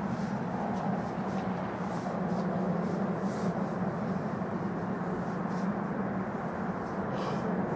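Distant passenger train running across a railway viaduct: a steady low rumble, with a few faint brief high sounds now and then.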